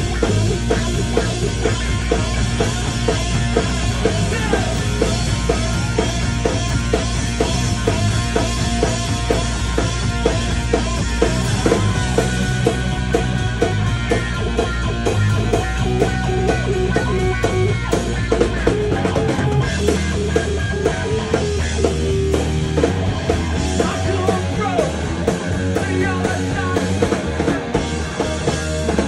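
A live rock band plays at full volume: an SG-style electric guitar over a bass guitar and a drum kit keeping a steady beat.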